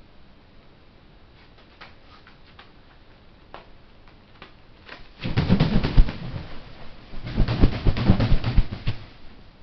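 Juvenile herring gull flapping its wings hard in two bouts of rapid wingbeats, each a second or so long, in the second half. Before that come faint light ticks of its feet on plastic sheeting.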